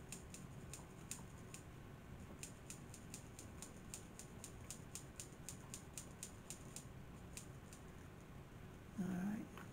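Faint, rapid light clicking, about four or five clicks a second, in runs with short pauses. Near the end comes a brief louder low sound that rises a little in pitch.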